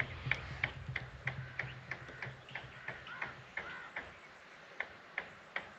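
Faint, regular ticking, about three ticks a second, over a low hum that fades out about halfway through.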